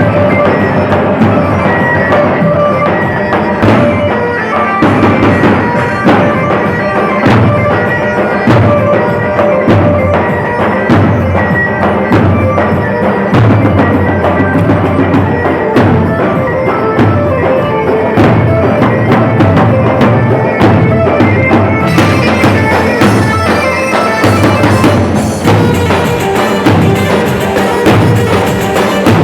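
Loud instrumental Arabic folk music: a reedy, wind-like melody over a steady drum beat, growing brighter about two-thirds of the way through.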